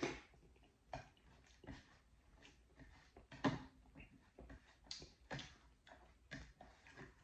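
Eating dal bhat by hand: mouth and chewing sounds, then fingers mixing wet rice and lentils on a plate. A string of short, irregular smacks and clicks, the loudest about three and a half seconds in.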